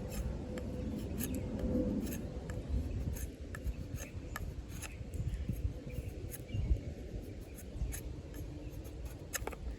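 Off-Grid Caiman XXL's D2 steel bowie blade shaving curls off a piece of hardwood: irregular scraping strokes with small clicks and ticks.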